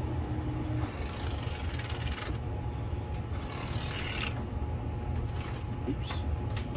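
Dry rubbing and scraping against sheets of very fine 22,000-grit polishing paper, in several strokes about a second long, over a steady low hum.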